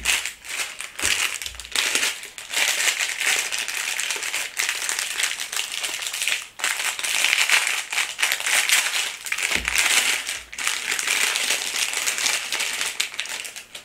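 A figurine's crinkly wrapper crinkling and crackling loudly as hands work at it, in long stretches broken by a few brief pauses.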